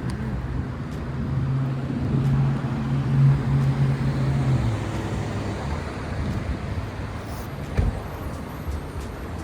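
A motor vehicle's engine running with a steady low hum that swells for a few seconds and then eases off. A single thump comes near the end.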